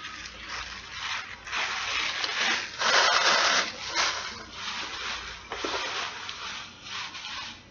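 Paper rustling and crinkling in repeated bursts as the sandwich's paper wrapper and napkin are handled, loudest about three seconds in.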